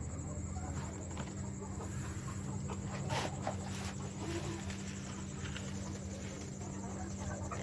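Chickens clucking, with several short calls a little after three seconds in and again later, over a steady low hum.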